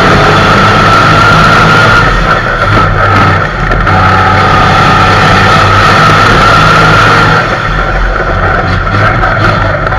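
Race truck's diesel engine running hard under load, heard from inside the cab, with a steady high whine over the engine note. It gets quieter about seven seconds in.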